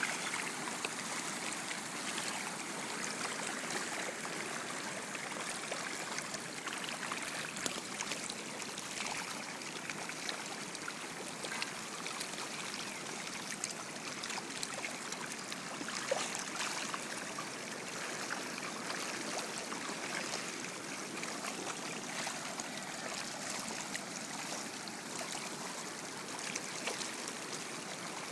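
Steady rush of water in a concrete trout raceway, with scattered small splashes from a dense crowd of trout thrashing at the surface.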